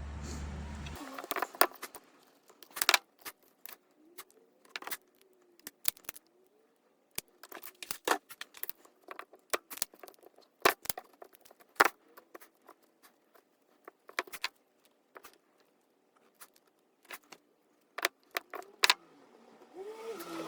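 Irregular sharp clicks and snips of hand tools and small parts being handled while a car speaker wire is cut and fitted with an electrical connector.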